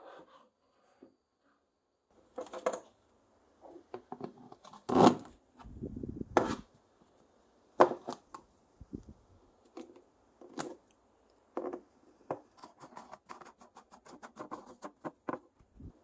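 Hard plastic knocks, clacks and rubbing from a plastic paint-bucket lid being handled while a plastic threaded pipe fitting is fitted into its centre hole. A few sharp knocks and a dull thud come in the middle, and a run of quick small clicks comes near the end.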